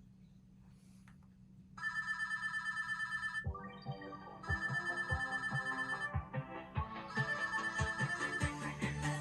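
Music played through B&W 607 S2 Anniversary Edition bookshelf speakers driven by a Rega Elicit-R amplifier. After a faint hum for the first two seconds, a rapid bell-like trill starts, and bass hits and a fuller backing join it.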